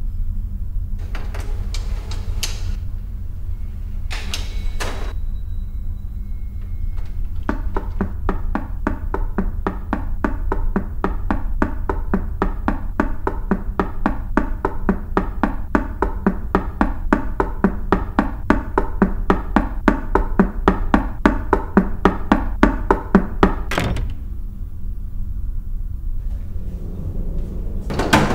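Suspense film sound: a low, steady drone under a long run of rapid, even knocking that grows louder for about fifteen seconds and breaks off on one sharp hit. A single slap of a hand on a wooden door comes near the end.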